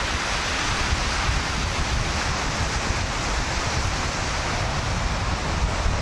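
Steady hiss of wind and sea surf, with wind buffeting the microphone in an uneven low rumble.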